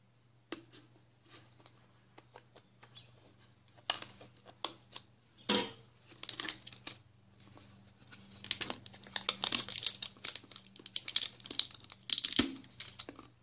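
A printed label being peeled by hand off a plastic soap bottle: irregular tearing and crinkling crackles, sparse at first and coming thick and fast in the second half.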